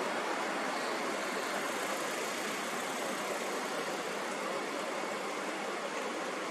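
A steady, even hiss of noise with no rhythm, swells or breaks.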